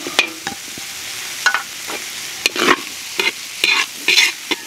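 Diced hotdog hitting a hot steel wok of ground meat and carrots and frying with a steady sizzle. A metal spatula knocks once just after the start, then scrapes and tosses the mix in strokes about twice a second from the middle on.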